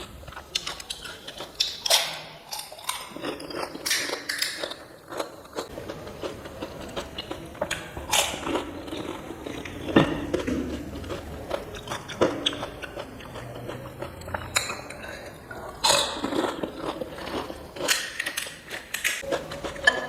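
Close-up eating of panipuri: crisp puri shells crunching and crackling between the teeth, followed by wet chewing, over and over with a few louder crunches.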